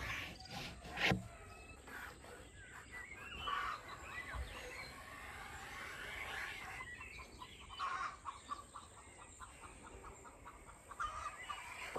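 Hen clucking on and off, with a sharp knock about a second in and a few lighter clicks from a knife cutting dough on a wooden board.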